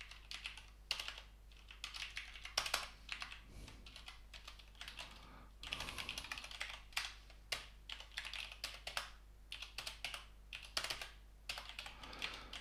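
Typing on a computer keyboard: irregular runs of quiet key clicks, broken by short pauses.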